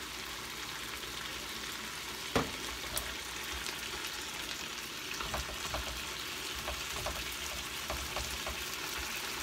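Frozen broccoli sizzling in a frying pan, its thawed-out water still cooking off, with a steady hiss. About two seconds in there is a single sharp knock as an aluminium can is set down on the stainless-steel counter. From about halfway on, chopsticks stirring the pan tap it in a run of light clicks.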